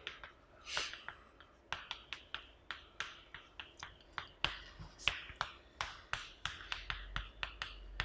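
Chalk writing on a chalkboard: a string of sharp taps and short scrapes as each stroke is made, a few a second, coming faster in the second half.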